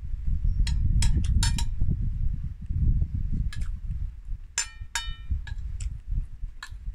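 Metal spoon clinking and scraping against a plate, several sharp clicks, two of them about halfway through ringing on briefly like struck metal, over a steady low rumble.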